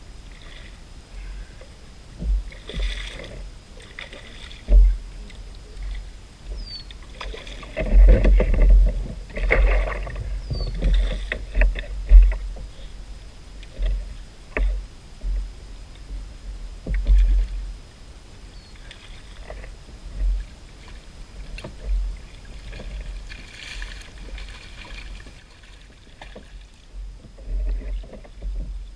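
Irregular knocks, bumps and handling noises in a Hobie kayak as a fish is fought on rod and reel and a landing net is brought into play. The sounds are loudest and busiest for a few seconds about a third of the way in.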